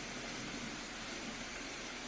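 Soft, steady rain: an even hiss of rainfall with no distinct drops standing out.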